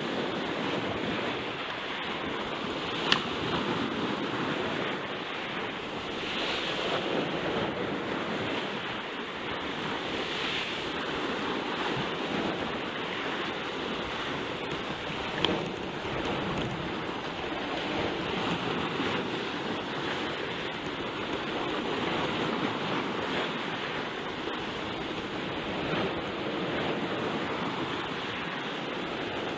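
Surf washing and breaking around shoreline rocks, swelling and easing every few seconds, with wind buffeting the microphone. Two sharp clicks stand out, about 3 seconds and about 15 seconds in.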